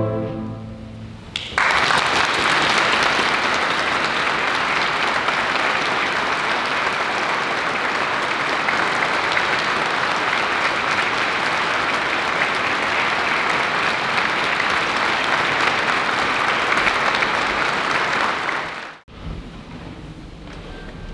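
The last chord of a string ensemble dies away in the church's reverberation, then the audience breaks into steady applause about a second and a half in. The applause cuts off suddenly near the end.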